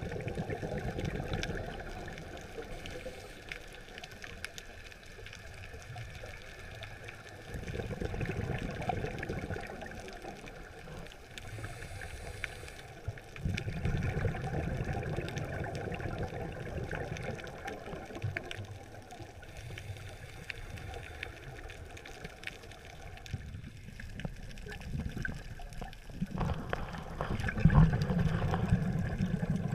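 Scuba diver breathing underwater through a regulator: exhaled bubbles gurgle out in surges about every six seconds, the loudest near the end.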